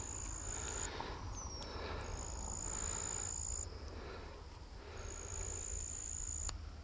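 An insect stridulating: a high, steady buzz in trills about one and a half seconds long, three times, with gaps of about a second between them.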